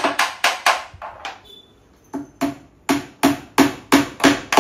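Hammer tapping wooden dowel pins into the holes of a laminated particleboard cabinet panel: sharp, even strikes about three to four a second, a pause of about a second after the first few, then a steady run of strikes.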